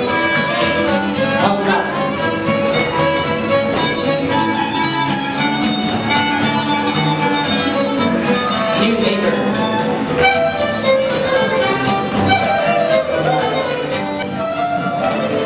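Fiddle-led string-band music: a fiddle playing a tune over a steady rhythmic accompaniment.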